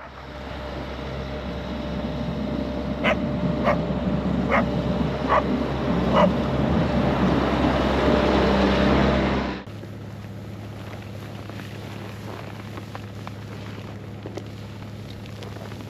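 A vehicle engine running, growing louder over the first nine seconds or so, with a dog barking five times in short sharp barks partway through. It cuts off suddenly and gives way to a quieter, steady engine hum.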